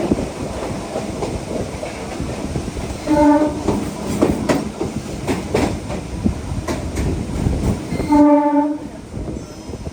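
Train running along the track with wheels clicking over rail joints, and two short horn blasts, one about three seconds in and a louder one about eight seconds in. The running noise falls away right after the second blast.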